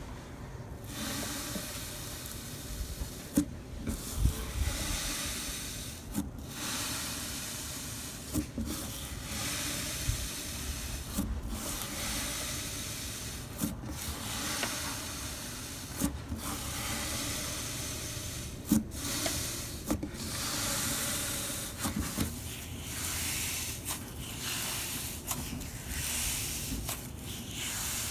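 Slime being pressed and stretched by hand, making a crackly hiss in repeated strokes every two to three seconds, with a few sharp pops and snaps.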